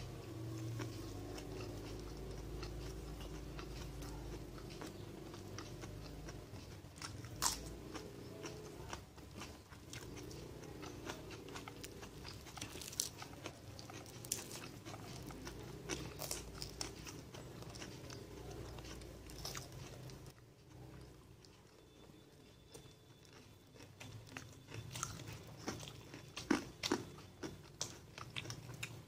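Close-up eating sounds: chewing and crunchy bites, with sharp irregular clicks scattered through and a quieter few seconds about two-thirds of the way in.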